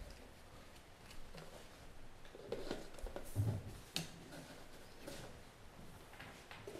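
Handling noise from a secret ballot: paper rustling and light clicks as ballot papers are dropped into a ballot box passed along a table. A dull thump comes about three and a half seconds in, followed at once by a sharp click.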